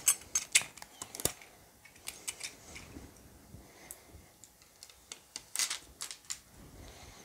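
Handling noise on a small resin 3D printer: scattered sharp clicks and light rustles as hands handle a thin sheet and work at the build-plate mount. There is a group of clicks near the start and another toward the end.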